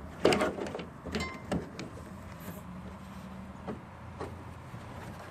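Metal parts being handled as a car trunk latch is pushed into place in the trunk lid: a few sharp clicks and knocks in the first second and a half, then a few faint scattered taps.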